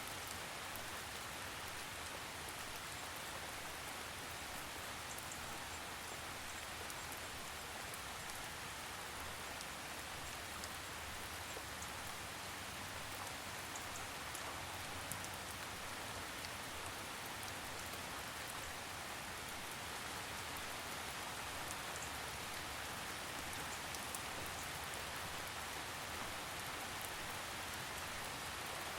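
Steady rain falling, an even hiss with scattered faint ticks of single drops.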